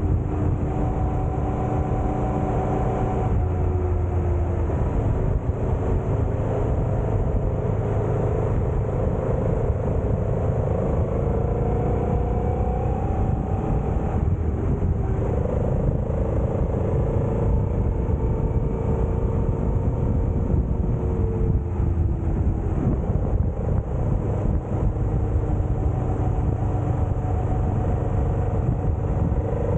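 Honda Transalp motorcycle engine running under way, its pitch rising and falling slowly with throttle, over a steady low rumble.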